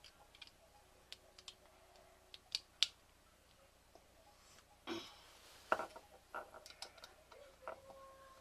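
Light clicks and taps of small pieces being handled while a toy boat is assembled by hand, with two sharper clicks about two and a half seconds in and a short rustle about five seconds in.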